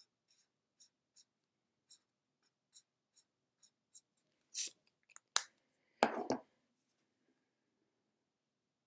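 Felt-tip highlighter rubbing on notebook paper in short strokes, about two a second. About four and a half seconds in come a louder scrape, two sharp clicks and a thump.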